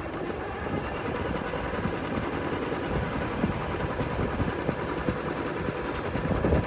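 Jaguar zigzag sewing machine running steadily at speed, stitching a decorative zigzag pattern.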